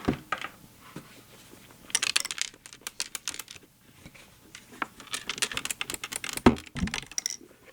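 A loose screw rattling inside an ASM Hydrasynth Explorer synthesizer as the unit is tipped and handled, in two runs of quick clicks. A low thump comes about six and a half seconds in.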